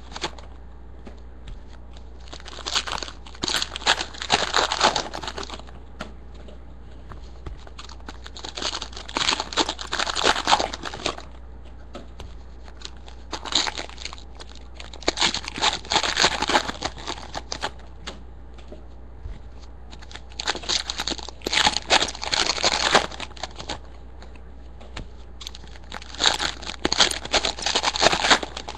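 Trading card pack wrappers being torn open and crinkled by hand, in five separate bursts of a few seconds each, one pack after another.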